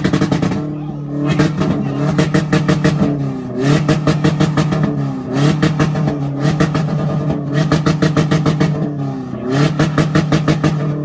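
A car engine held at a two-step rev limiter, its note staying flat while the limiter cuts in as a rapid stream of crackling pops. The revs dip and climb back to the limiter several times.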